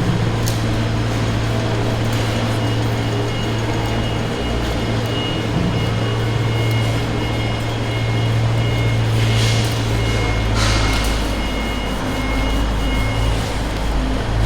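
A steady low machine hum, with a faint high tone pulsing on and off from about two seconds in until near the end, and a couple of short rustling or clattering noises about ten seconds in.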